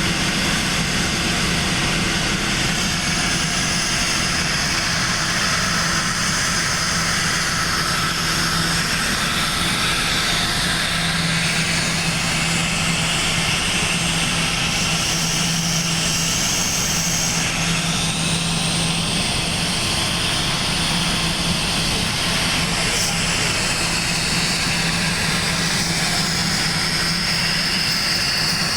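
Oil-free air compressor running steadily: a constant low hum under an even, hissing drone that holds level throughout.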